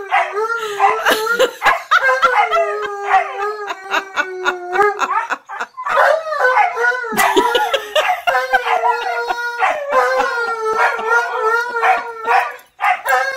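An Alaskan malamute and a husky howling together in long, wavering, overlapping howls. They break off briefly about halfway through, then start again.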